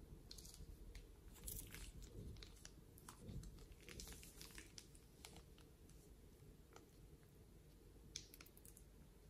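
Faint crinkling and soft crackles of a thin plastic piping bag being squeezed and moved over wet slime, in irregular clusters.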